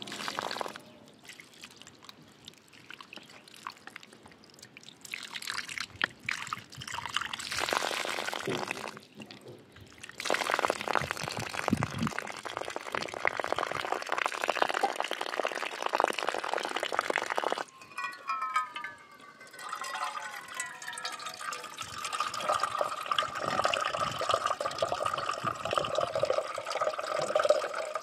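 Water running from an outdoor pipe spout and splashing on the ground, on and off. In the later part it pours into a cooking pot, and a steadier ringing pitch comes in as the pot fills.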